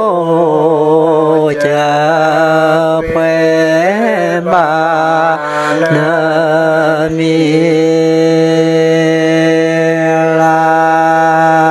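A man chanting a Karen hta poem in long held notes. The pitch drops at the start and then holds, with one brief swoop up and down about four seconds in.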